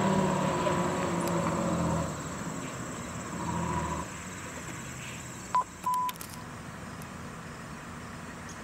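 A fire engine running as it pulls away, its engine fading out over the first two seconds, then low steady background noise. About five and a half seconds in come two short high beeps, the second a little longer.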